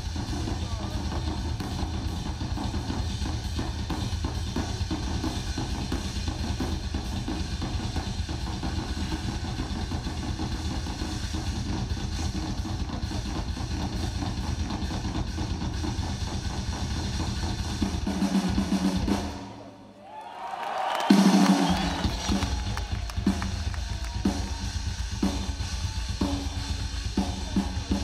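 Rock drum kit in a live drum solo: a fast, continuous roll with heavy low-end drumming. About two-thirds of the way through it drops away for a moment, then a loud crash hit comes in and the drumming resumes with more spaced-out strikes.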